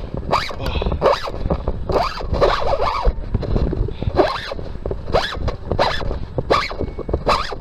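A series of short, sharp rasping scrapes, about one or two a second, over a steady low rumble.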